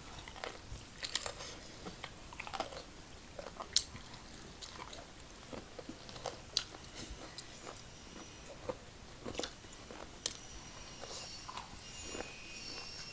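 Close-miked chewing and crunching of food, with irregular crisp bites and mouth clicks.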